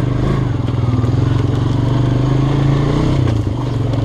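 Four-wheeler (ATV) engine running under throttle while riding. Its pitch climbs slightly and then drops briefly about three and a half seconds in before picking up again.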